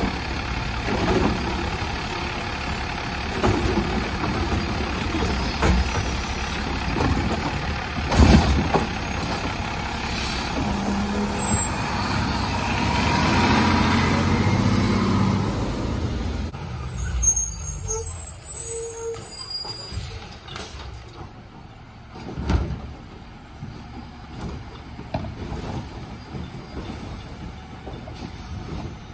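Automated side-loader garbage truck at work: diesel engine running and the hydraulic lift arm working as a cart is emptied, with a sharp bang about eight seconds in. Around twelve seconds in the engine revs with a rising high whine and hiss as the truck pulls away, then the sound fades as it drives off.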